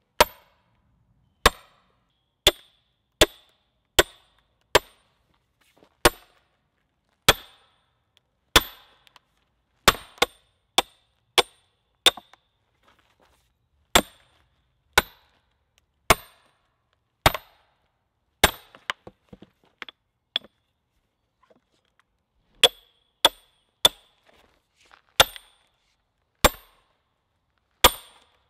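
Sledgehammer striking steel splitting wedges driven into a pine log: a long series of sharp, ringing metal-on-metal strikes about once a second, with a couple of short pauses, as the wedges open the log along the grain.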